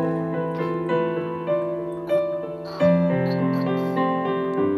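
Keyboard with a piano sound playing slow, held chords, with a few single notes struck between the chord changes.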